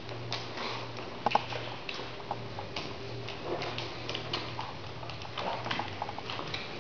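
Small irregular clicks and smacks from a Doberman puppy mouthing and nuzzling an adult Doberman on a tiled floor, with two sharper clicks about a second in, over a steady low hum.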